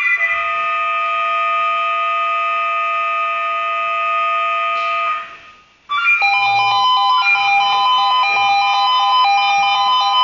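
Swissphone Quattro 96 pager sounding its alert tones for a monthly test alarm. A steady chord of several tones lasts about five seconds and stops briefly, then a rapidly trilling alert tone starts.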